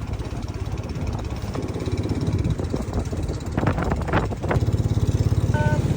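Small boat engine running steadily under the passengers, with a strimmer-like sound; it gets louder with an even, rapid pulse about two-thirds of the way through.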